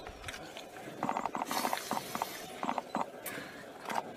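Animals struggling over a warthog kill: several bursts of rapid, pulsing calls, with a brief hiss-like noise between them.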